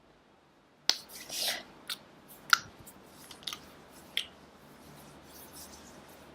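Close-up mouth sounds: a scattering of sharp wet clicks and smacks, the loudest about two and a half seconds in, with a short breathy rush near the start.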